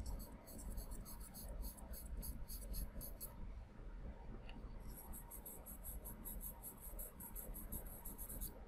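Charcoal pencil scratching on drawing paper in quick, repeated hatching strokes as shadows are shaded into a portrait. There are two runs of strokes, several a second, with a short pause a little after three seconds in. The sound is quiet.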